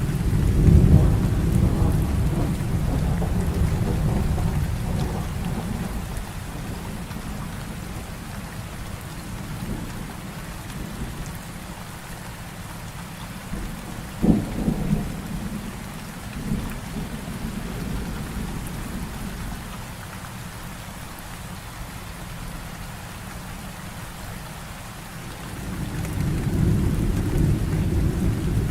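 Heavy rain falling steadily through a thunderstorm. A deep thunder rumble fades over the first several seconds, a sharp thunderclap cracks about halfway through, and another rumble builds near the end.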